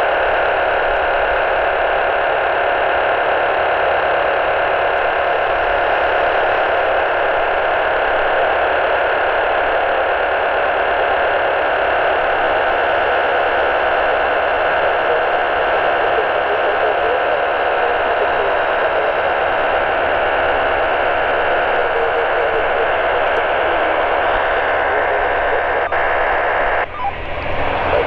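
Steady, loud hiss-like noise with faint steady tones running through it, unchanging until it shifts abruptly about a second before the end.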